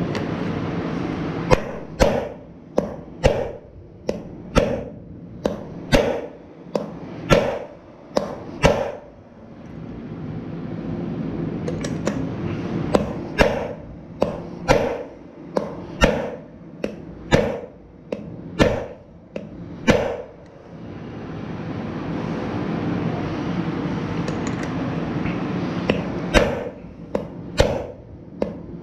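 Hammer blows on a steel bearing race driver, seating a new bearing race into a mower's front wheel hub. Three runs of sharp ringing metal strikes, about one to two a second, with pauses of a few seconds between them.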